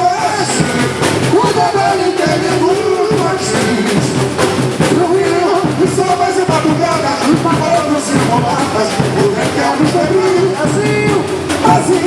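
Samba school rehearsal: a chorus of voices singing a samba-enredo over the drum section's steady percussion.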